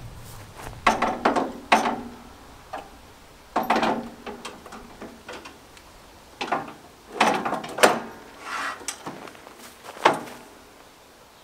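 Steel sliding table of a stone saw pushed back and forth along its rails on ball-bearing rollers: a series of separate rolling rattles and metal clunks, with pauses between strokes.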